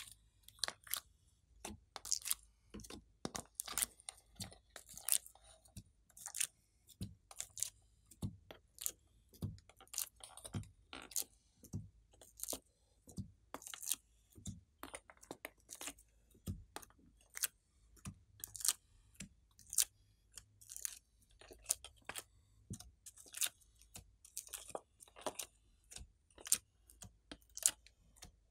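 Short sticky pops and squelches as soft slime cubes are pulled out of a plastic mold tray and pressed down onto wet glossy slime, coming irregularly about one or two a second.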